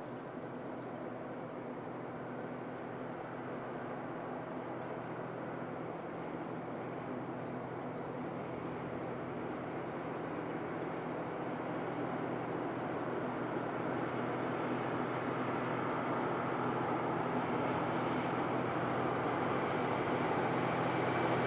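Diesel locomotive of a freight train approaching, its engine drone and running noise growing steadily louder.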